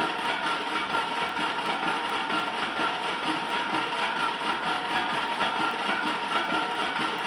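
Lathe running steadily while turning a 245 mm pipe: an even machine hum with a few steady high tones over it.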